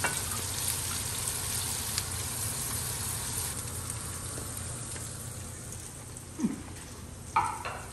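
Bison burger patties sizzling in a hot grill pan as they are lifted out with a spatula, the sizzle slowly fading. Two short louder sounds come near the end.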